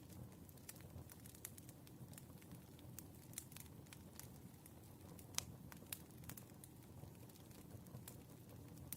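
Wood fire burning softly: scattered sharp crackles and pops over a low steady rumble, with one louder pop about five and a half seconds in.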